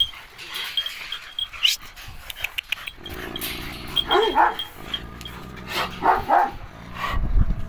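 Kangal shepherd dog barking in short deep pairs, about four seconds in and again about six seconds in.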